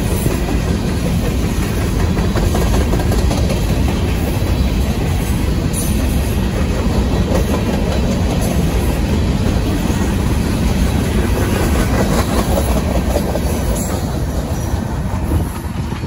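A string of empty covered hopper cars on a Union Pacific grain train rolling past at close range, wheels clattering over the rail joints. It eases slightly near the end as the last cars go by.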